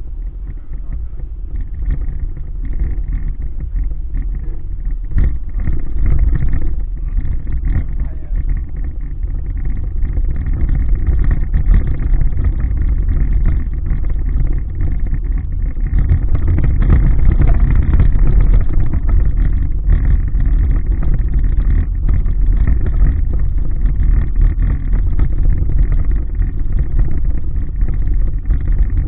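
Car driving, heard from inside the cabin: a steady low rumble of engine and tyres on the road that grows somewhat louder past the middle, with a few short knocks.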